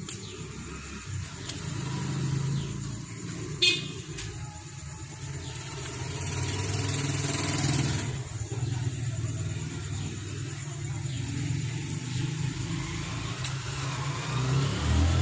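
Steady low rumble of road traffic, with a short sharp rattle about three and a half seconds in and a hiss of noise lasting about two seconds from around six seconds in.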